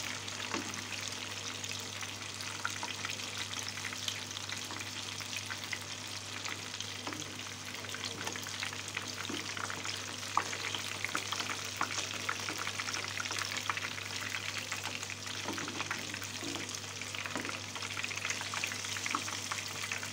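Tahu bacem (tofu simmered in spices and palm sugar) frying in hot oil in a small pan: a steady sizzle full of small crackles, with a metal spatula now and then turning the pieces.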